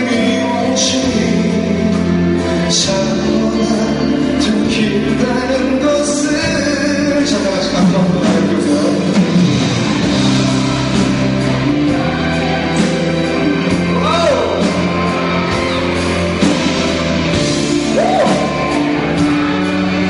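Live pop ballad performance: a male singer singing over a band's accompaniment.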